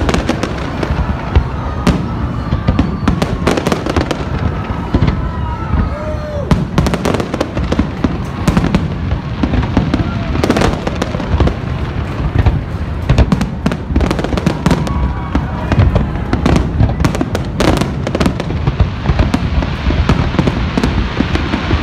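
Fireworks display: many shells bursting in quick succession, sharp cracks over a continuous low rumble.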